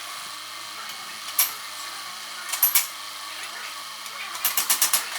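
Sharp clicks over a steady hiss: one about a second and a half in, a pair near the middle, then a quick run of about six near the end.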